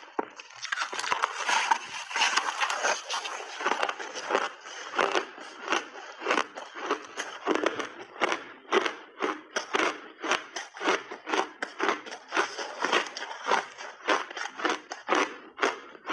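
Close-miked crunching of a big bite of refrozen ice block being bitten off and chewed. A dense crackle of breaking ice for the first few seconds, then sharp chewing crunches, two or three a second.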